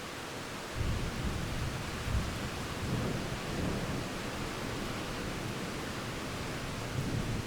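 Thunder rolling in about a second in and rumbling on in swells over a steady hiss of rain.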